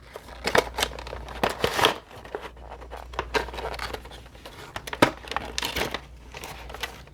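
Product packaging being opened and handled: irregular crinkling and rustling of plastic and cardboard in short bursts.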